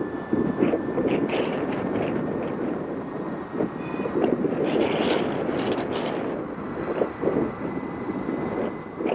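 Wind buffeting the microphone and road noise from a scooter riding at about 50 to 60 km/h, in irregular gusts, with a faint steady high whine.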